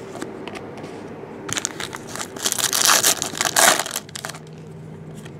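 Crinkling and rustling of trading-card packaging being handled, in a dense crackly burst from about one and a half to four seconds in.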